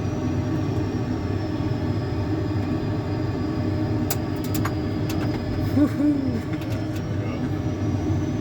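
Steady rumble of simulated jet engine and airflow noise inside a full-motion Boeing 737-800 flight simulator climbing after takeoff. A few light clicks come about four to five seconds in, and a brief rising-and-falling tone about six seconds in.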